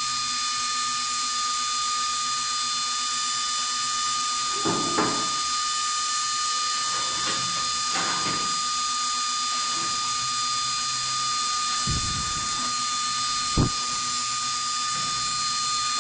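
Small 12 V DC blower fan running steadily at high speed: an airy hiss with a high, even whine. A few light knocks of handling come through during it.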